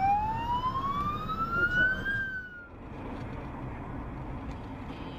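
Ambulance siren wailing: one slow rising sweep that dips briefly and cuts off about two and a half seconds in. After the cut comes the steady road and engine noise of a car driving.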